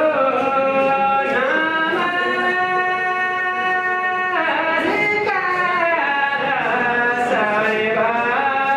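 A man singing solo into a microphone. He holds long drawn-out notes that slide up and down between phrases, in the style of a Deuda folk song from far-western Nepal.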